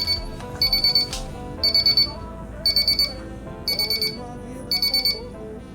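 Paradox alarm keypad beeping after being armed in away mode: a quick burst of four or five high beeps about once a second, the exit-delay countdown. The beeping stops about five seconds in.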